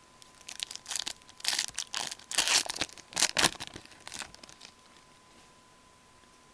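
Foil wrapper of a Fleer hockey card pack being torn open and crinkled by hand: a string of irregular crackles and rips that stops about two thirds of the way in.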